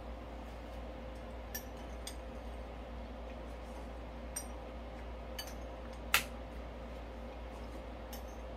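Quiet room tone with a steady faint hum, broken by a few light, sharp clicks and ticks; the sharpest comes about six seconds in.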